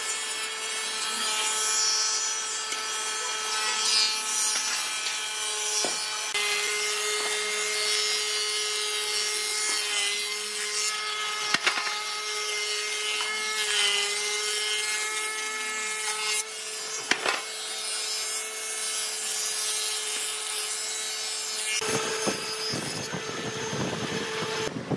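Combination jointer-thickness planer running, its spinning cutterhead whining steadily while a wooden board is planed through it, with a hiss of cutting and a few sharp clicks. Near the end the sound turns heavier and lower as the next cut begins.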